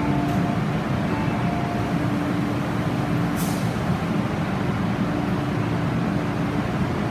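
Electric commuter train standing at the platform: a steady hum with a low tone over station rumble, and a short hiss about three and a half seconds in.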